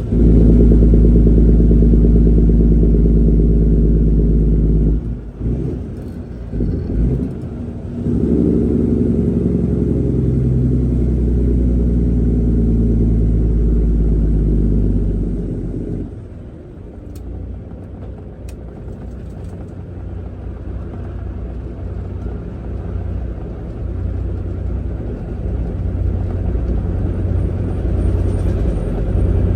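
Semi truck's diesel engine running, a deep steady tone that drops away about five seconds in, returns strongly with its pitch shifting from about eight seconds, then settles into a softer rumble after about sixteen seconds.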